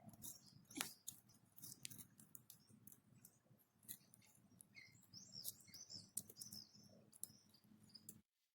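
Faint chirps of small birds mixed with scattered sharp clicks and ticks over low background noise, cutting off abruptly to silence near the end.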